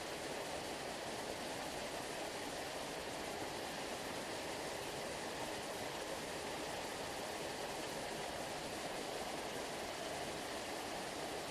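Sea water rushing in a steady, even wash like a waterfall, with no separate waves breaking.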